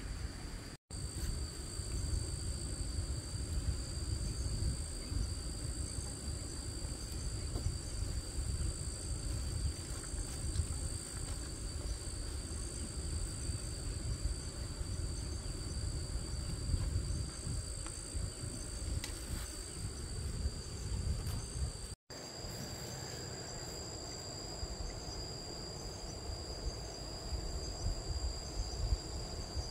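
Insects trilling steadily at two high pitches over a low rumble, cut off briefly twice.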